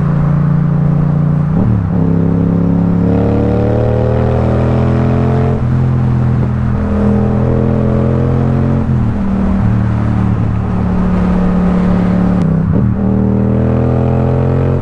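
Yamaha XSR700's parallel-twin engine running through a loud Akrapovic carbon full-system exhaust under way, its pitch climbing slowly and dropping a few times as gears change.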